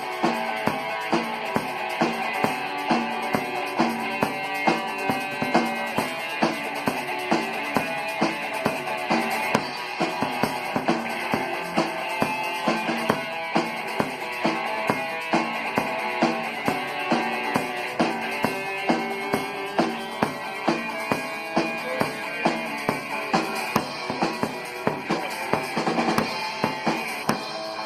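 Instrumental break of a rock song: a drum kit keeps a steady beat of about two hits a second, kick and snare, under sustained guitar chords, with no singing.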